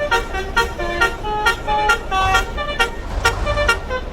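Indonesian 'telolet' multi-tone bus horn (Basuri) playing a quick jingle of short notes, several a second, stepping between pitches. A bus engine rumbles underneath, growing louder in the middle.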